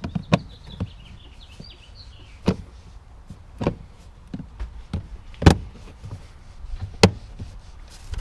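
Plastic trunk fuse-panel cover of a Pontiac G6 being clipped back into place: five sharp clicks and knocks a second or two apart, the loudest two near the end.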